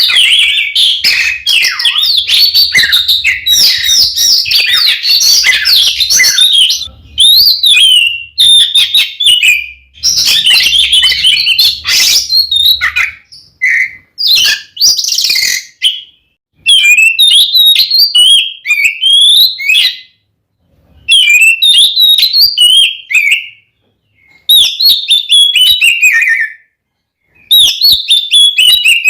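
Oriental magpie-robin (kacer) singing its loud, aggressive fighting song in rapid, varied whistled phrases. The first dozen seconds are a near-unbroken stream; after that come shorter bursts with brief pauses between them.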